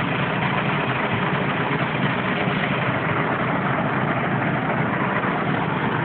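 Diesel engines of concrete mixer trucks running steadily at idle.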